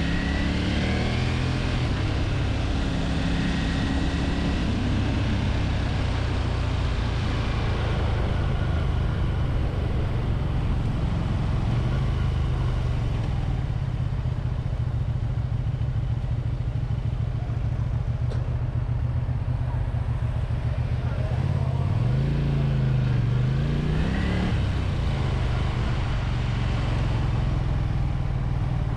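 Honda VT250F Integra's V-twin engine running under way, over a steady rush of wind. Its pitch drops and climbs again about three-quarters of the way through, as the bike slows and pulls away.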